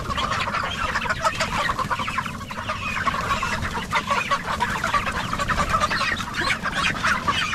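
A crowded flock of chickens clucking constantly, many short calls overlapping, as people reach in among them to catch one.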